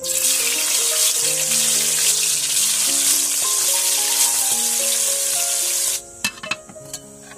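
Whole fish frying in hot oil in an iron wok: a loud, steady sizzle that cuts off about six seconds in.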